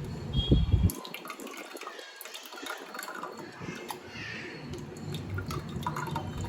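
Water splashing and dripping as soaked tamarind pulp is squeezed by hand in a bowl of water to make tamarind extract, with a couple of louder bumps in the first second.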